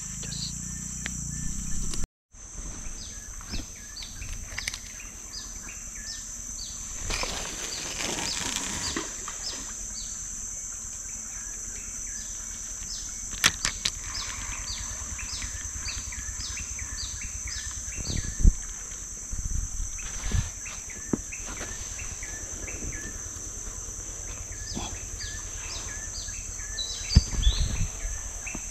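A steady, high-pitched insect drone from the riverside forest, with repeated short falling chirps about twice a second. A few sharp knocks come from the angler handling the fishing rod and reel.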